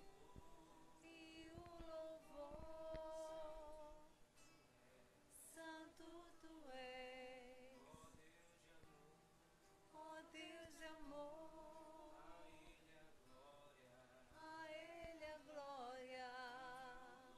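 Voices singing a church song together, mostly women's, in long held notes.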